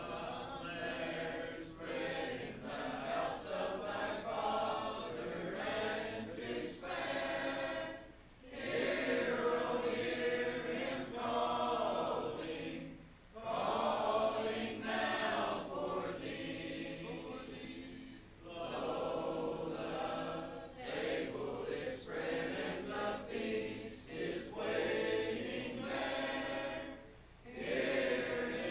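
A congregation singing a hymn together a cappella, mixed voices with no instruments, in phrases broken by short breaths every few seconds.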